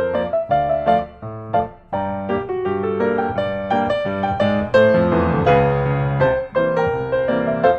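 Background piano music: a melody of quick, evenly spaced notes over lower chords.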